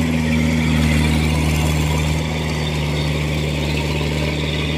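Engine of a small tracked crawler cart loaded with sacks of rice, running steadily as it pulls through deep mud in a waterlogged rice paddy. The hum eases slightly about two seconds in.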